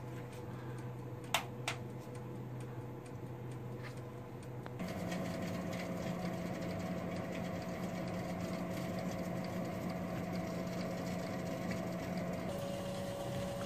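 Cuisinart TOA-60 toaster oven air fryer running with a steady motor hum; the hum shifts in pitch about five seconds in and again near the end. Two light clicks about a second and a half in.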